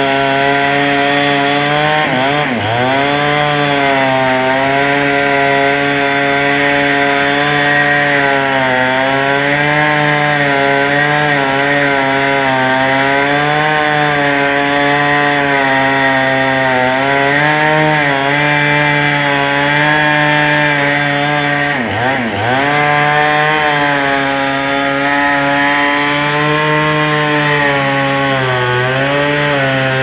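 Two-stroke petrol chainsaw running under load as it cuts through a large log, its engine note steady with the hiss of the chain in the wood. The engine pitch dips sharply and recovers twice, about two seconds in and again about twenty-two seconds in.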